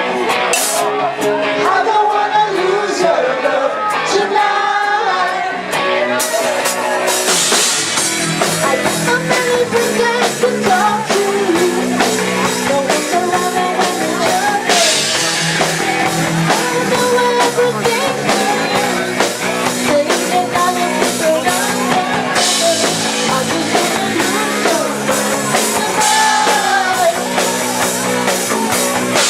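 Live rock band playing with a singer and guitars. The band's sound fills out, brighter and fuller, about six seconds in.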